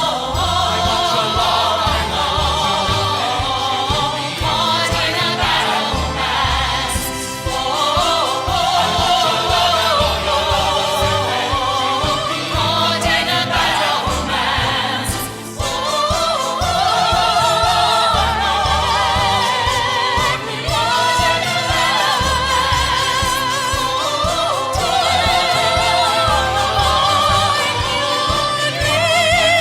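Music with singing: a voice holding wavering, vibrato notes, choir-like in places, over a steady beat.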